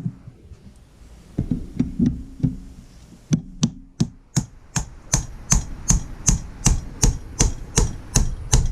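A mallet banging repeatedly on the housing of a diaphragm water pump to knock it open: a few uneven blows, then a steady run of about three sharp knocks a second.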